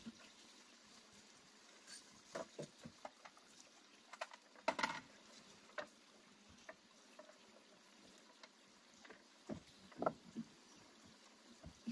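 Faint, scattered knocks and rustles of tidying on a wooden plank porch: a plastic bag being handled and an electric cable dragged across the boards. There is a slightly louder rustle about five seconds in and a few knocks around ten seconds.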